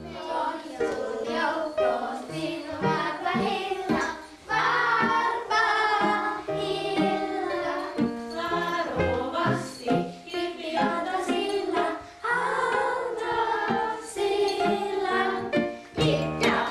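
A group of children singing a traditional Finnish Christmas song over a steady instrumental accompaniment with stepping bass notes.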